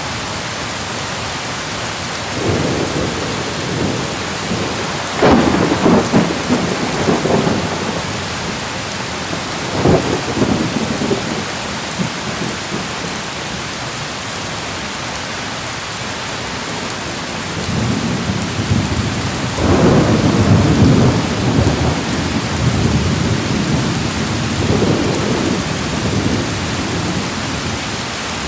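Steady heavy rain hissing throughout, with thunder rolling and rumbling over it several times. The loudest rolls come about five seconds in and about twenty seconds in.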